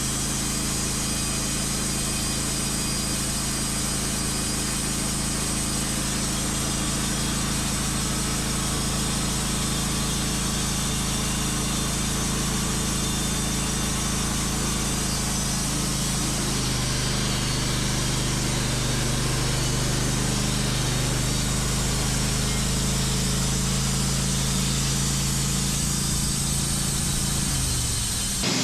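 Wood-Mizer LT15 portable sawmill running steadily. Its pitch shifts about halfway through and drops away right at the end.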